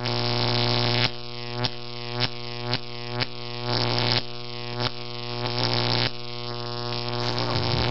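Music: a buzzy drone held at one steady pitch, pulsing in a beat about twice a second.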